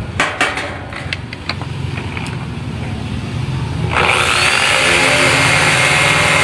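A few knocks and clatters of metal, then an electric drill starts about four seconds in and runs steadily, drilling at a steel frame. A low steady hum runs underneath.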